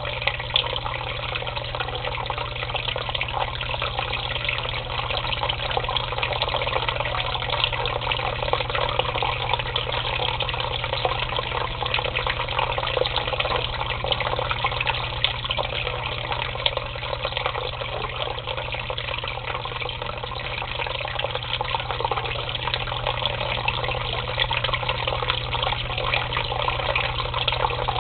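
Water pouring steadily into a shallow tub and splashing on the surface, a constant rushing with a low hum beneath it.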